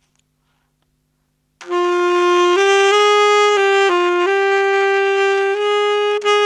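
Alto saxophone playing a slow melody of held notes that step up and down, starting about a second and a half in, recorded through an Audix F15 microphone.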